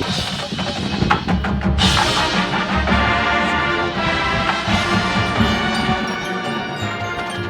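High school marching band playing sustained full-ensemble chords over drums, with a crash about two seconds in.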